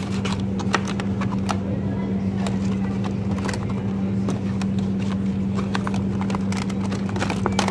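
Plastic food packaging handled and tapped, giving many short clicks and crinkles, over a steady low hum.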